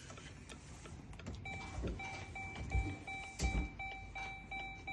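2018 Dodge Durango's dashboard warning chime, starting about a second and a half in and repeating at about two and a half short chimes a second, with a couple of dull knocks in the cabin.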